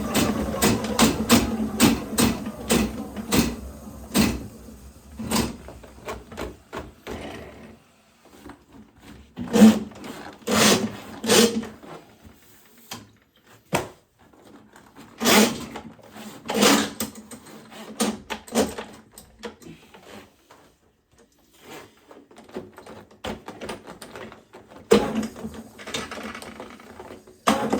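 Motorized drain snake running on a sewer cleanout, stopping after about seven seconds. Scattered sharp knocks and clanks of the cable and tools being handled follow, and the machine starts running again near the end.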